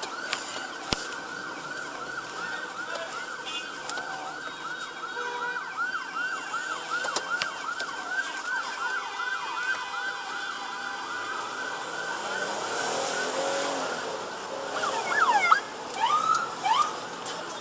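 Police car siren on rapid yelp, about four rising-and-falling cycles a second, fading out about ten seconds in. Near the end come a few louder, sliding squeals.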